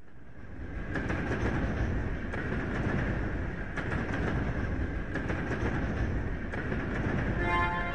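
Quad bike (ATV) riding over a rough desert dirt track: a steady engine and road rumble with occasional knocks and rattles. Music comes in near the end.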